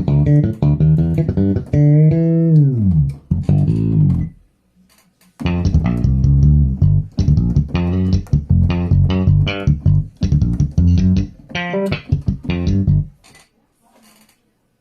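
Bass guitar played solo in quick plucked notes, with a slide down in pitch a couple of seconds in. After a pause of about a second comes another fast run of notes, which stops a couple of seconds before the end.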